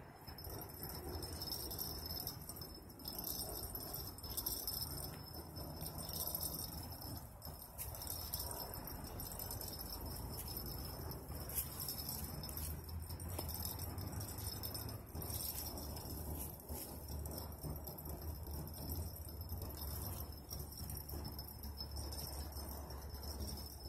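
Fishing reel clicking and rattling with a high, jingling sound as a large catfish pulls against the bent rod, over a steady low rumble.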